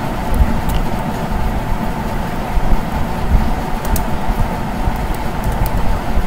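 Steady low background rumble, with a few faint clicks of computer keys being typed.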